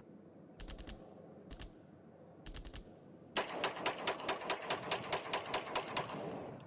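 A few scattered sharp clicks, then about halfway a fast, even run of sharp knocks, about six a second, that stops shortly before the end.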